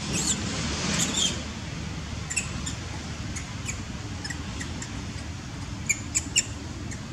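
Long-tailed macaques giving scattered short, high squeaks and chirps, with a quick run of three sharp squeaks about six seconds in.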